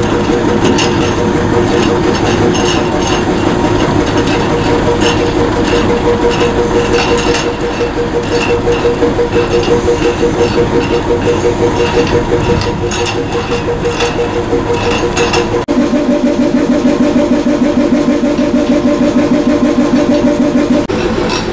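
Drewry 200 hp diesel locomotive (built 1953) idling at a standstill, a steady throbbing engine note. Its note changes about three-quarters of the way through.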